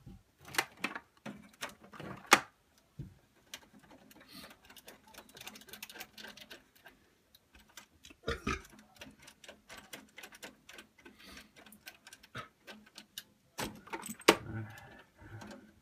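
Cables being unplugged from the back of a desktop computer tower: irregular clicks and knocks of connectors and plugs being handled and pulled out, with a few louder knocks.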